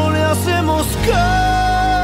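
Pop ballad music playing: a few short notes, then a long held note sets in about a second in over a steady bass line.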